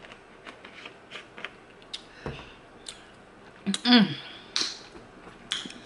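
Plastic cap being screwed onto a smoothie bottle in a run of small clicks, a dull thump about two seconds in as the bottle is set down on the table, and a short voiced 'mm' from the drinker near four seconds.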